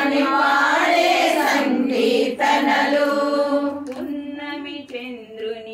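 A group of women singing a Telugu devotional song to Sai Baba together, holding long notes; the singing grows quieter about four seconds in.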